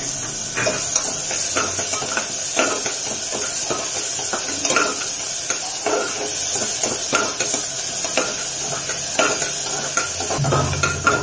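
Chopped onion sizzling in hot oil in an aluminium pressure cooker, while a metal spoon stirs it, scraping and clinking against the pot at an uneven pace.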